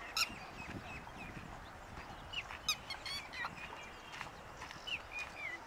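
Wild birds calling: several short, high chirps and whistled notes in scattered clusters, some sliding down in pitch, over a steady background hiss.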